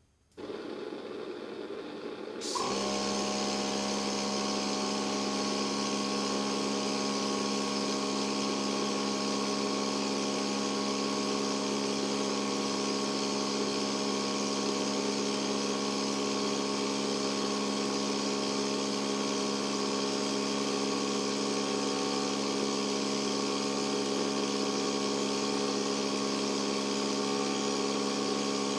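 Gas burners on a turbine-blade thermal test rig: a rush of air starts about half a second in, then about two and a half seconds in the flames light with a sudden jump in level. From then on they burn steadily, a loud even hiss with a steady hum of several tones, as the rig heats the internally air-cooled blade specimens.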